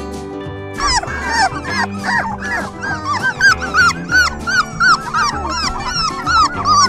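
A young puppy whimpering and yipping in quick, high, rising-and-falling cries, several a second, starting about a second in, over background music.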